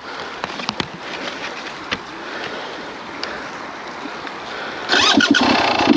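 Two-stroke single-cylinder engine of a Beta 300RR enduro motorcycle running at low throttle as the bike rolls along, then revved up loudly about five seconds in.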